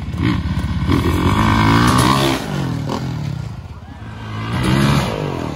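Motocross bike engine revving hard and dropping back, twice: a long rise over the first two seconds, then a shorter one about four seconds in.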